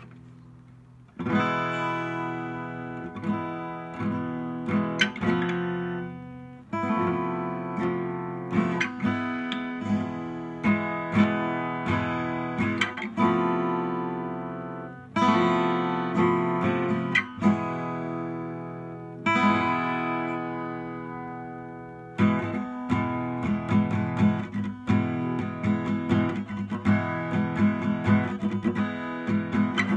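Background music on acoustic guitar: chords strummed and left to ring, with single plucked notes between them. It starts about a second in after a short hush.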